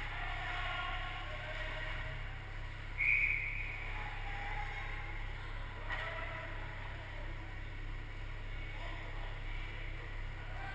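Ice-rink ambience during a hockey game: a steady low hum under faint, distant shouts from the far end of the ice. One short high tone about three seconds in is the loudest sound.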